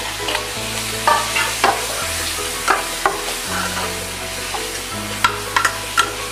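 Marinated prawns sizzling as they fry with onions in an aluminium pressure cooker, while a steel ladle stirs them and clinks and scrapes against the pot several times.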